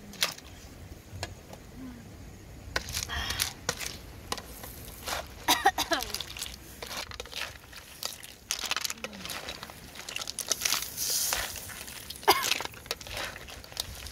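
Cooked mussel shells clattering against a metal wok and each other as a spatula scoops them out onto a bamboo tray, in an uneven run of sharp clicks and knocks.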